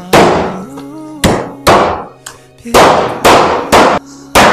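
Chinese cleaver chopping through pork ribs on a wooden chopping board: about seven heavy chops at uneven intervals, each with a short ringing tail.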